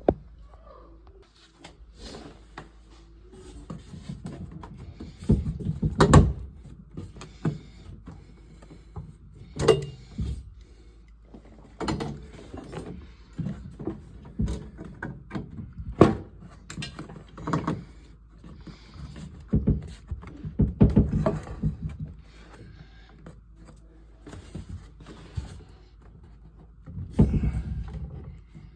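Irregular knocks, clunks and scrapes of hands-on work with tools and parts, in a small room, a few of them loud.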